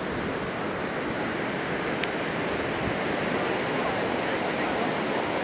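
Rough ocean surf breaking on the beach, a steady wash of noise from heavy, raging waves.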